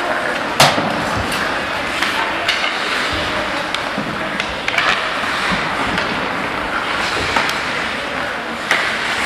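Ice hockey play on the rink: skate blades scraping and hissing on the ice, scattered with short clacks of sticks and puck, and one loud sharp crack a little over half a second in.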